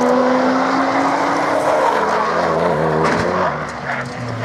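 Sports-car engines heard from trackside. A Porsche Cayman's flat-six holds a steady note as it pulls away through a corner, over tyre noise. About halfway through, other cars' engine notes take over and step down in pitch, with a brief knock, and a lower engine note comes in near the end.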